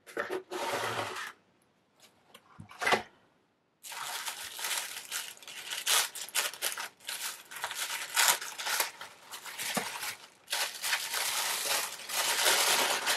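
A cardboard shipping box being opened, with a short scrape and a few sharp clicks. From about four seconds in, yellow tissue paper crinkles and rustles steadily as it is unfolded from around the contents.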